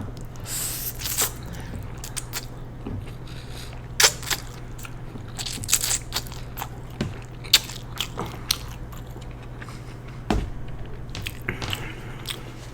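Close-miked eating sounds: chewing with scattered wet mouth smacks and clicks while eating Mi Goreng instant noodles, coming every second or so over a low steady hum.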